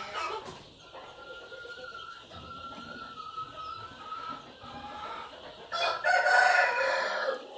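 Black rooster crowing loudly about six seconds in, one crow of about a second and a half. Before it a fainter, long drawn-out crow holds a thin, slowly falling note for several seconds.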